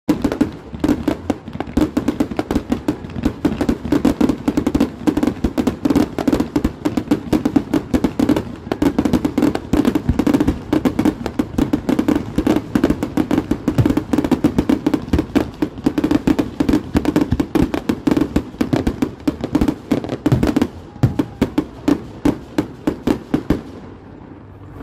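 Fireworks going off in a dense, continuous barrage of rapid crackling bangs, many per second, which thin out and stop about a second before the end.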